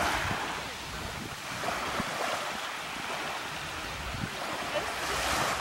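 Wind buffeting the microphone over small waves washing at the water's edge, swelling and easing every couple of seconds.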